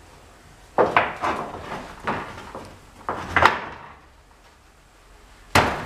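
Wooden bed frame parts knocking and scraping as they are worked into place: a cluster of sharp knocks about a second in, another about two seconds in, two more around three and a half seconds, and a last sharp knock near the end.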